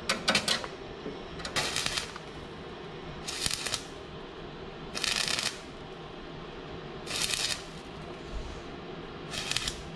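Stick welder's arc crackling and spitting in six short bursts of about half a second each, roughly every one and a half to two seconds. The arc is struck and broken again and again to weld reinforcing wire onto the thin steel pipe of a lawnmower handle.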